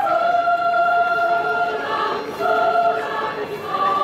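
High-school choir singing in harmony, several voice parts holding long notes together and moving to new chords about every second or so.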